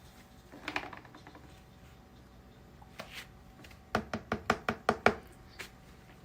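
A quick run of about eight sharp taps or knocks, a little over four seconds in, with a brief clatter near the start and a single tap in between.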